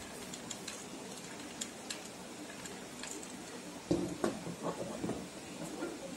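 Small clicks and taps of hands at craft work: a hot glue gun and small beads being handled on a plastic table mat. A cluster of louder knocks and clatter comes about four seconds in, over a steady background hiss.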